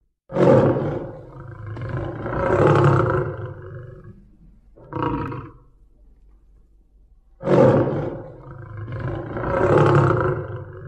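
Tiger roaring: a long roar of a few seconds, a short one about five seconds in, then another long roar starting about seven and a half seconds in.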